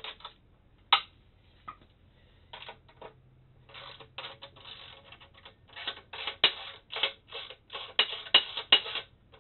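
Socket ratchet clicking in quick bursts as nylon lock nuts are loosened, with one sharp metallic knock about a second in.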